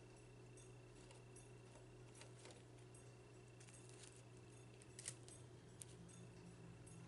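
Near silence: faint steady room hum with a few soft, scattered clicks and ticks.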